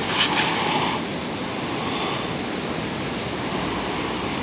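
Steady outdoor hiss of wind on the microphone, with a short rustle in the first second.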